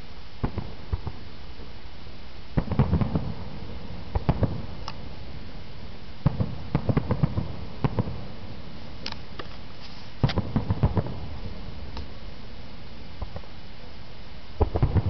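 Aerial fireworks bursting, heard as clusters of sharp cracks and pops in volleys a few seconds apart, over a steady background hiss.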